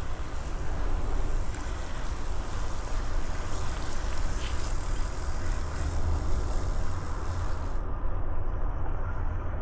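Wind rushing over the microphone while riding a bicycle: a steady low rumble.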